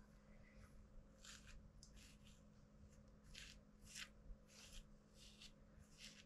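Faint, short rasping strokes of a comb drawn through a Shih Tzu's long coat, about nine of them at irregular spacing.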